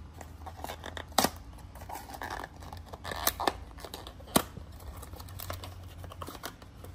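Cardboard box of a FRAM cartridge oil filter being pried and torn open by hand: scratching and tearing of paperboard with a few sharp snaps, the loudest about a second in and again after four seconds.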